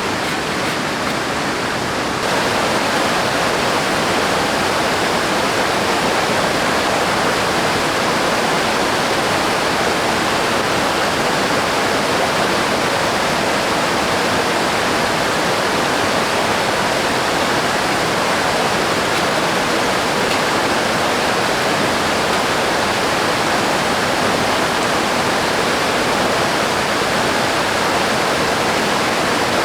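River water rushing in a steady, even noise that steps up a little in loudness about two seconds in.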